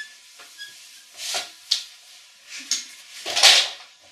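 Rope being untied and pulled free: several short rustling swishes with a few sharp clicks, the longest and loudest near the end.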